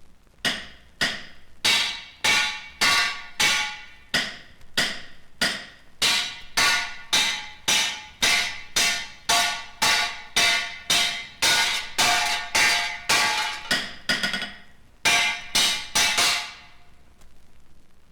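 A steady series of sharp, ringing metallic strikes, about two a second, with a short break near the end before a last few blows.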